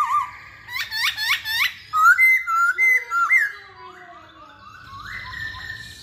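Masked laughingthrush singing a loud, varied song. It opens with a short warble, then four quick upswept notes, then loud whistled phrases. The song trails off into softer notes in the second half.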